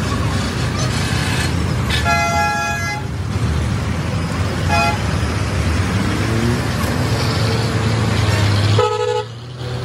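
Vehicle horn honking over a steady diesel engine hum: a long blast about two seconds in, a short toot near five seconds, and another brief one near the end.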